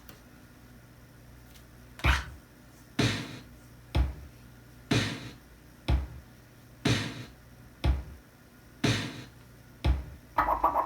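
Drum samples from Sonic Drum Kit on an Amiga 500, heard through the studio monitors: kick-like and snare-like hits alternate about once a second, starting about two seconds in, ending with a quick flurry of ringing hits.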